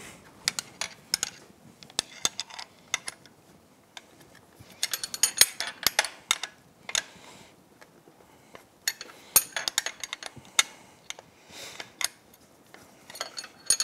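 Wrench clicking and clinking on the steel bolts that hold a Yamaha F225 outboard powerhead to its midsection as they are tightened by hand, in several bursts of quick metal clicks with short pauses between.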